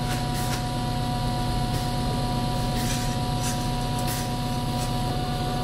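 A steady machine drone, with a constant hum over an even hiss and a few faint clicks.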